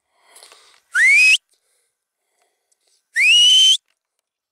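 Two loud rising whistles, each about half a second long, about two seconds apart: a hunter's whistle signal to his pointing dogs working the field.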